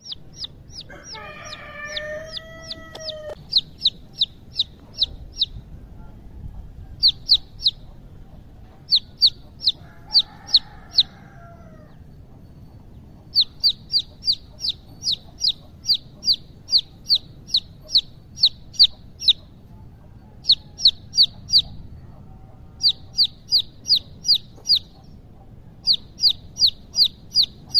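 Young country chicken (nattu koli) chicks peeping: short, high, falling peeps about four a second, in bouts of several seconds with brief pauses between.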